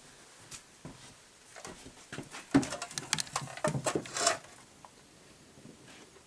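Handling noise: scattered clicks and knocks as a hand moves close by, with a dense run of sharp clicks and knocks from about two and a half to four and a half seconds in. The loudest knock comes at the start of that run.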